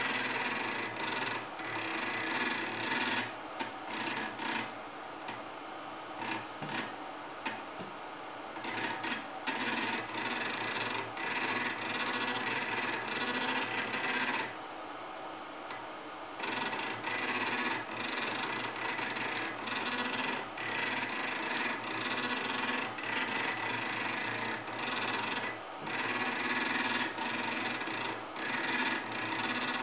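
Small stepper motor of an optical-drive laser sled, driven through an H-bridge and running its lead screw in starts and stops with short pauses, its speed changing with the speed of the mouse. It makes a buzzing, grinding rasp.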